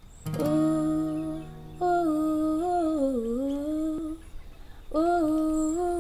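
A woman singing a wordless melody in three long, gliding phrases over a strummed Taylor acoustic guitar chord that opens the first phrase.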